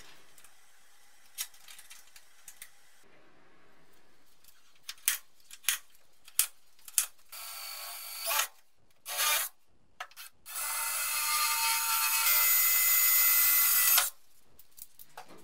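Cordless reciprocating saw starting in two short bursts, then running for about three and a half seconds with a steady whine before cutting off suddenly, as its blade is worked into a small slot in the car's sheet-steel floor panel. The blade is struggling to find a way in to start the cut. Clicks and knocks of the tool being handled come between the bursts.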